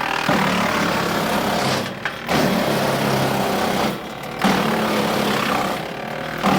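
Woodmaxx WM8H PTO-driven wood chipper running off a tractor and chipping branches. The loud chipping comes in stretches of about two seconds, each broken by a short lull, over the steady hum of the engine.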